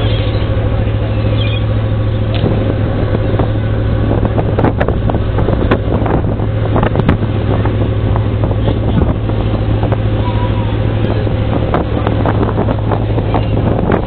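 A ferry's engines running with a steady low drone, under a rush of wind on the microphone and sea noise, with scattered short knocks, most of them in the middle.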